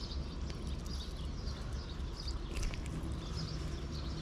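Birds chirping repeatedly over a steady low background rumble, with a few faint clicks about two and a half seconds in.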